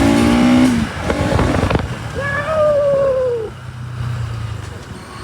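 Bajaj Pulsar NS200 single-cylinder engine revving up under acceleration, its pitch rising until it cuts off a little under a second in, then steady wind and road rush.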